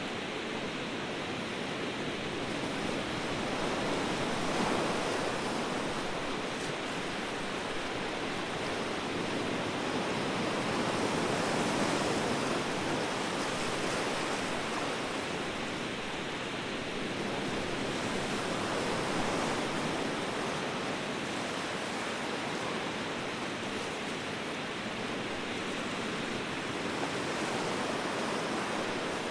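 Ocean surf: a steady wash of waves that swells gently every several seconds.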